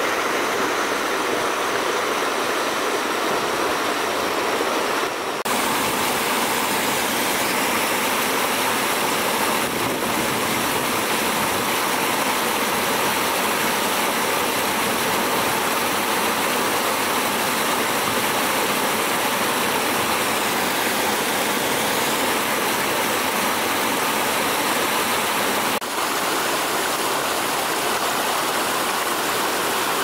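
Stream water rushing over rocks and spilling down a small cascade, a steady white-water noise. Its tone shifts slightly about five seconds in and again near the end.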